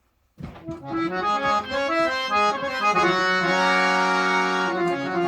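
Harmonium (option one, the brighter, sharper-toned one) played with reed chords and a moving melody, starting about half a second in and settling into held chords.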